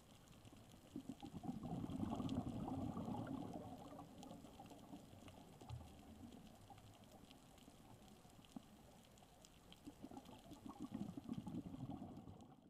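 Underwater scuba recording of a diver's exhaled regulator bubbles, two exhalations: one starting about a second in and lasting a few seconds, another near the end. Between them, a faint underwater hiss with scattered faint clicks.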